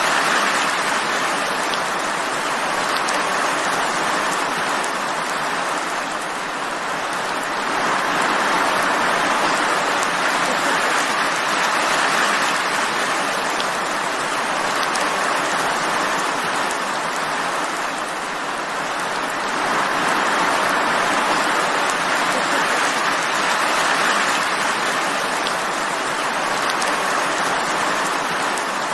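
Steady heavy rain falling, a dense even hiss that swells and eases slowly every several seconds.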